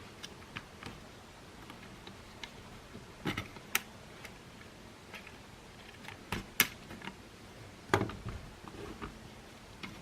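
Scattered clicks and knocks of the plastic parts of a Makita cordless stick vacuum and small tools being handled during disassembly, with a few sharper knocks about three, six and a half and eight seconds in.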